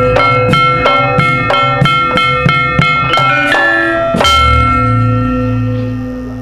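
Javanese gamelan playing: a quick, even run of struck bronze keyed instruments, about three notes a second, ending about four seconds in on one loud stroke with a deep gong that rings on and slowly fades.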